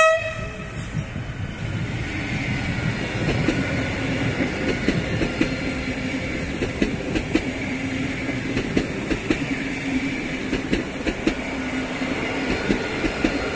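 PKP Intercity Pendolino (ED250) electric train passing close by at speed: steady rumble of wheels on rail with a steady hum and a long run of clicks as its wheels cross rail joints. A horn blast cuts off right at the start.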